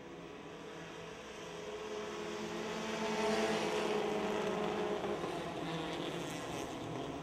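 A pack of Dirt Devil class race cars running on a dirt oval, many engines at once. The sound swells to its loudest about three to four seconds in as the cars pass close, then eases.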